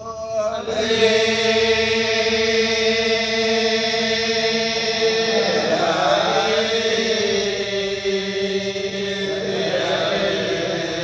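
Balinese genjek: a group of men chanting together in layered voices over a held drone note, the full group coming in about a second in.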